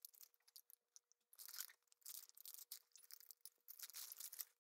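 Plastic mailer packaging being torn open and crinkled by hand: faint, irregular bursts of tearing and rustling in several bouts.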